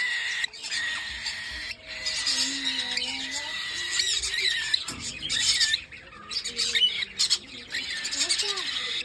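Several small parrots chirping and squawking, short calls that rise and fall and overlap one another.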